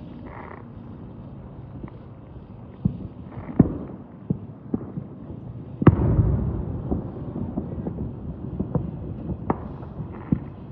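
Fireworks going off: a string of scattered bangs and pops, with the biggest bang about six seconds in, trailed by a long rumble.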